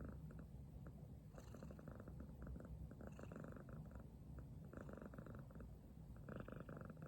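Domestic cat purring, a snore-like rumble that swells and fades with each breath, about four times.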